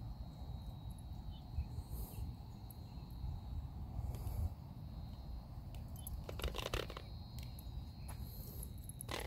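Crickets chirping in a steady, thin, high trill, over low outdoor noise on the microphone, with a short burst of rustling clicks about six and a half seconds in.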